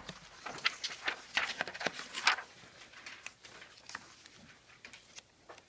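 Sheets of paper being flipped over and handled: crisp rustling and crinkling, busiest in the first two seconds, then a few softer rustles and taps.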